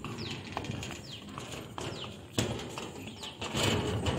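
Footsteps on a concrete footbridge, with a sharp knock about halfway through, while a bird calls again and again in short falling whistles.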